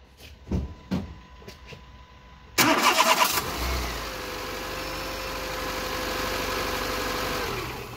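A few faint clicks, then the 2009 Renault Clio III's starter motor cranks the engine for under a second, the engine catches and idles steadily, and it stops near the end. The battery holds up well under the cranking, dipping to only 8.8 V.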